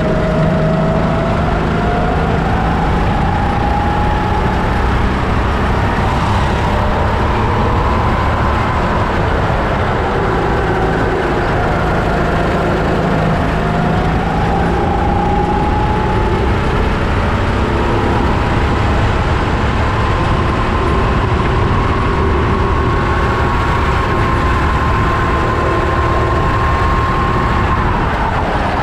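Sodi rental kart's four-stroke engine heard onboard at racing speed, its note climbing slowly on the straights and dipping briefly through a corner partway through. Near the end the engine note drops sharply as the throttle is lifted.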